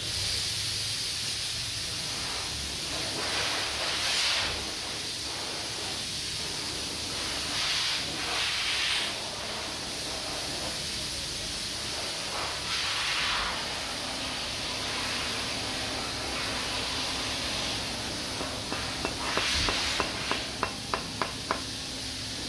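Steady hiss with a few louder rushes, then near the end about eight sharp clicks a few tenths of a second apart: a socket wrench tightening the breather fitting into a transfer case housing.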